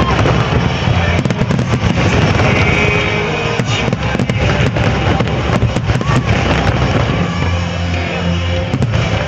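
Aerial fireworks shells bursting overhead in quick succession, a string of sharp bangs through the whole stretch.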